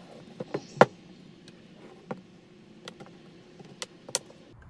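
Plastic clips of an Acer Switch tablet's case clicking and snapping as the back is pried open: a few quick clicks with one sharp snap about a second in, then single clicks every second or so.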